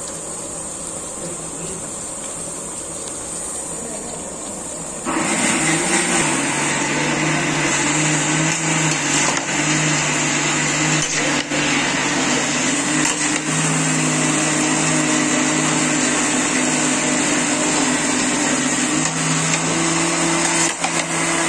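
An electric motor switches on suddenly about five seconds in and runs steadily at a loud level with a hum and a whine, its pitch shifting slightly near the end.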